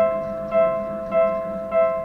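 Japanese level-crossing warning bell ringing its electronic ding-ding signal, a ringing tone struck evenly a little under twice a second, warning that a train is approaching.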